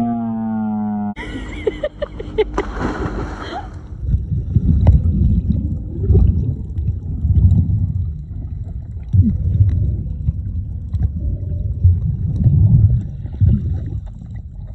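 Muffled underwater sound of a scuba diver's exhaled bubbles from the regulator: low rumbling, bubbling bursts every second or two.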